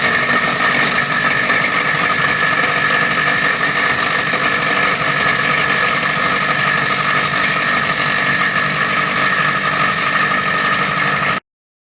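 Mini plastic-waste shredder running steadily, a loud mechanical drone with a high whine. The sound cuts off abruptly near the end.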